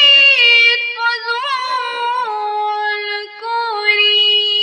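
A girl singing unaccompanied, drawing out long notes with slow wavering turns, then settling onto a lower held note a little past halfway through, with a brief breath break near the end.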